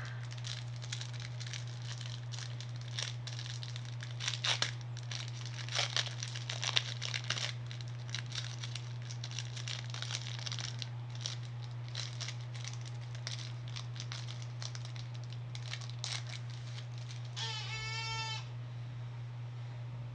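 Plastic wrapping crinkling and tearing as a sealed trading card's packaging is opened, dense crackles for the first half, then sparser. Near the end comes one brief, high, wavering squeal about a second long, over a steady low hum.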